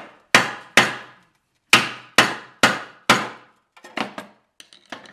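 Hammer blows on a screwdriver held against the inside of a brazed patch in an aluminum pipe, each strike clanging with a ringing tail: six hard blows, then a few lighter taps near the end. The blows are a strength test of the repair, and the patch holds.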